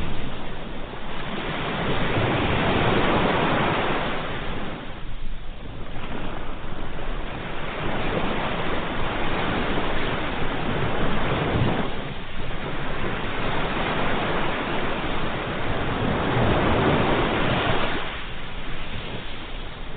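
Ocean waves breaking in surf, the rush of water swelling and falling back about every six seconds.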